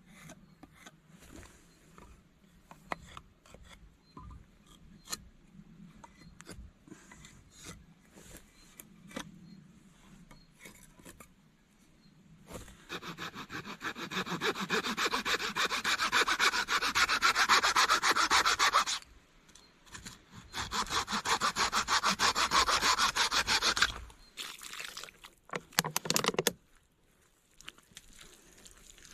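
Saw cutting wood in two long spells of quick, even strokes, about halfway through and again shortly after, with light knocks and clicks before it and a few short strokes near the end.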